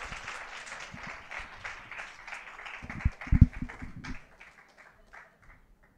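Congregation applauding, the clapping thinning out and dying away over the last two seconds. A few dull thumps stand out about three seconds in.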